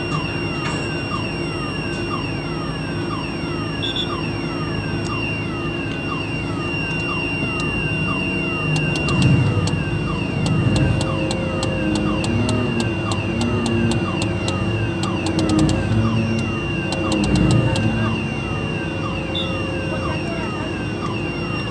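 A mobile crane's diesel engine runs with a steady low hum that grows louder and uneven through the middle as the crane holds and takes up the load. Over it a falling tone repeats about every two-thirds of a second, and there are bursts of fast ticking near the middle.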